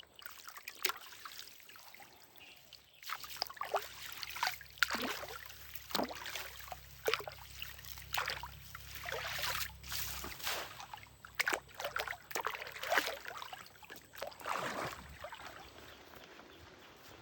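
Water splashing and sloshing in quick, irregular bursts, with trickling and dripping between them; the splashing is busiest through the middle and thins out near the end.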